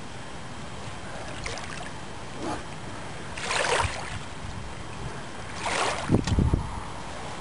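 Steady wind and water noise, with two louder rushing swishes about three and a half and six seconds in, the second followed by deep buffeting thumps of wind on the microphone.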